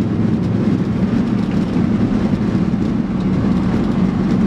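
1994 Ford F-150's 5.0-litre V8 heard from inside the cab while driving, a steady engine drone over road noise.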